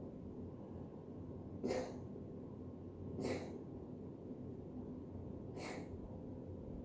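Three short coughs: the first two about a second and a half apart, the third about two seconds later.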